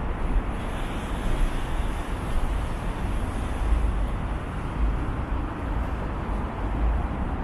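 Steady road traffic noise on a city street, with a low rumble that swells and fades.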